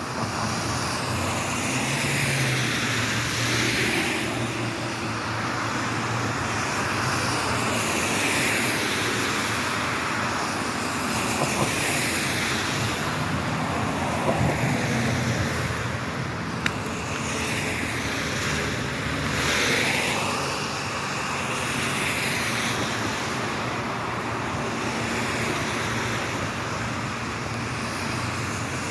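Road traffic on a wet road: a steady hiss of tyres on water, swelling again and again as vehicles pass.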